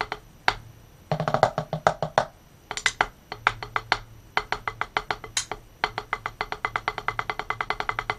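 Wooden drumsticks playing fast double strokes on a small hard rubber micro practice pad, giving sharp, dry clicks in several runs broken by short pauses.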